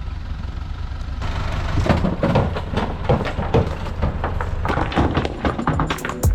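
Heavy truck's engine running under load with a steady low rumble, with irregular knocks and clattering from about a second in.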